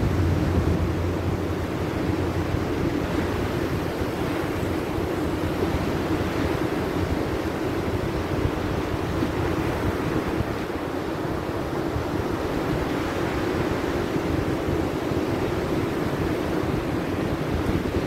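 Surf washing onto a sandy beach, a steady rush of breaking waves mixed with wind buffeting the microphone. A low rumble fades away in the first couple of seconds.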